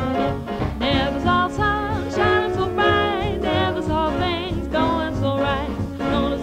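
Swing jazz band music: long notes with wide vibrato, sung or blown, over upright bass, drums and horns.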